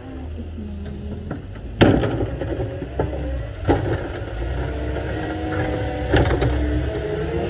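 Snow-clearing tractor's engine running, with four sharp knocks, the loudest about two seconds in.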